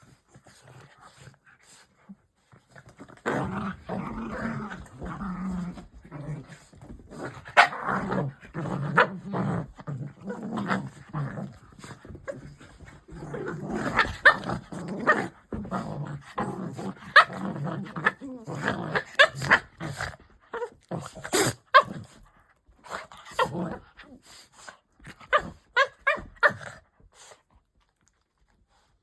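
Cocker spaniel growling in long stretches, with many sharp clicks and smacks between and over the growls, thinning out to scattered clicks near the end.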